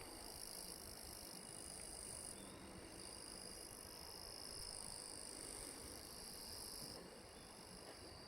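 Faint, steady, high-pitched insect chirring over a low background hiss, with part of the chorus stopping about seven seconds in.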